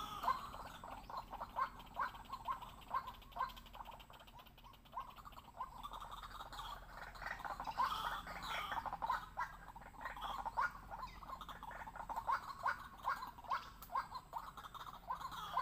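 White-breasted waterhen calling: a long run of short repeated call notes, about two to three a second, that thickens about halfway through and again near the end.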